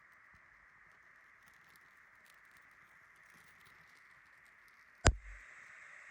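Steady faint hiss with one sharp, loud knock about five seconds in, followed by a brief low thud.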